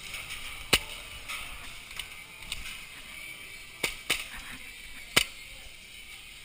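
Airsoft guns firing single shots: four sharp pops, one about a second in, a close pair near four seconds and one past five seconds, over a steady background hiss.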